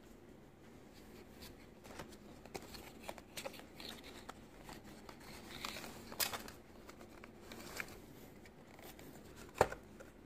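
Cardboard box and clear plastic tray of a die-cast model bus being handled as it is unboxed: scattered rustles, scrapes and light clicks, with one sharp click near the end.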